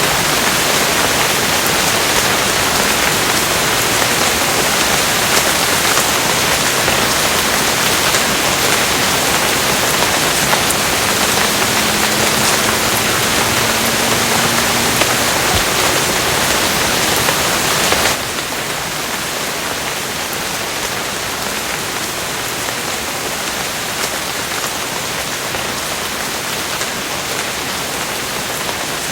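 Steady rain falling, an even hiss of many drops. About two-thirds of the way through it cuts abruptly to a slightly quieter, softer rain.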